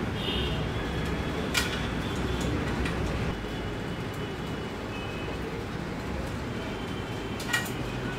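Steady low rumble of background noise with two sharp metallic clicks, about a second and a half in and near the end, as steel spokes are handled while being laced into an electric hub-motor wheel.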